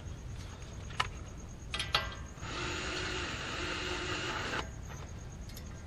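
A lug nut being run onto a wheel stud against a new brake rotor: two sharp metallic clicks, then about two seconds of steady whirring metal rubbing as the nut spins down the threads.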